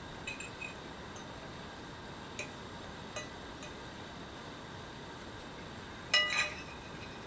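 Metal fork clinking against a plate while eating, a few light clinks spread out and then a louder cluster of clinks near the end.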